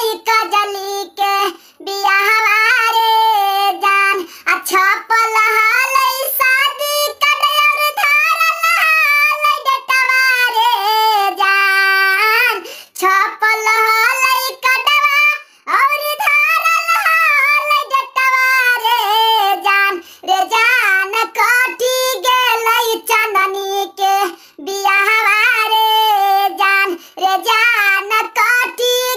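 A high-pitched, squeaky cartoon-cat voice in the style of Talking Tom singing a song with no instrumental accompaniment, in phrases with short breaks between them.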